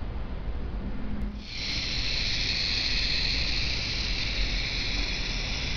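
Clockwork of a small wind-up Harold helicopter toy whirring as its spring runs down and spins the rotor, a steady high hiss-like whir that starts abruptly about a second and a half in.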